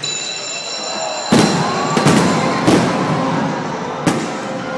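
Fireworks shells bursting overhead: a run of about five sharp, echoing bangs starting about a second in, over music playing in the background.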